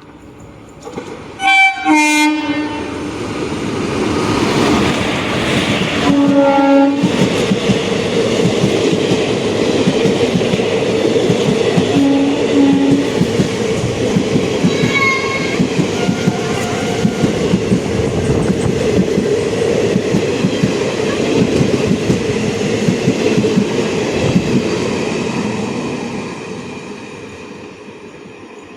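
Indian Railways express train sounding its horn as it approaches, in loud blasts about two seconds and six seconds in and shorter toots later. It then passes at speed with a dense rumble and rapid clickety-clack of wheels over rail joints, fading away near the end.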